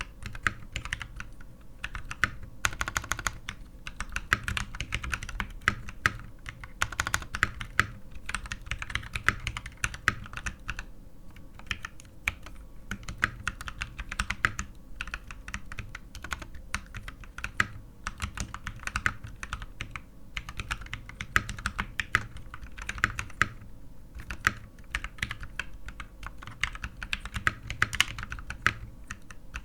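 Typing on a KT87 tenkeyless mechanical keyboard with lubed and filmed Durock T1 tactile switches and DSA-profile keycaps. The keystrokes come in quick runs broken by brief pauses.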